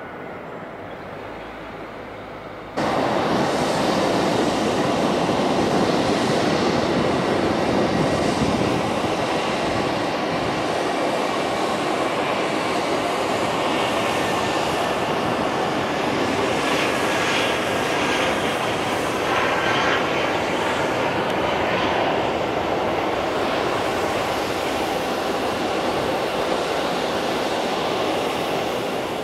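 Airbus A320 jet engines at takeoff power: a loud, steady jet noise through the takeoff roll and climb-out, with a faint whine about two-thirds of the way through. It follows a quieter steady hum in the first three seconds and starts suddenly about three seconds in.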